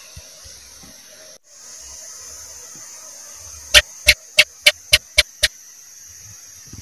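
House gecko (cicak) calling: a series of seven sharp chirps, about four a second, starting a little after halfway and getting slightly fainter toward the last. A steady hiss lies underneath.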